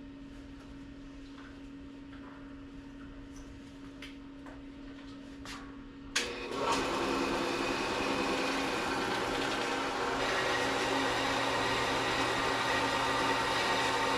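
A few light clicks of metal stock being handled over a steady hum. About six seconds in, a power saw starts with a sudden jolt and runs steadily, cutting a length of 1/8-inch steel stock.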